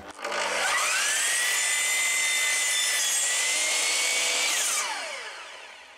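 Miter saw motor spinning up to a steady high whine, cutting a blade-width slot into stacked pine plywood boards, then winding down with a falling whine after it is switched off.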